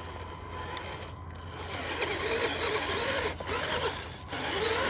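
Radio-controlled Tamiya King Hauler truck's electric motor and gearbox whirring as it drives over rough ground. The whir gets louder about two seconds in and rises and falls in pitch with the throttle, dropping out briefly twice near the end.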